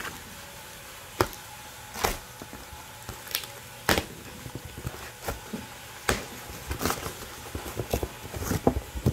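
Cardboard shipping box being opened by hand: flaps pulled back and the cardboard handled, making scattered sharp scrapes and knocks, roughly one a second.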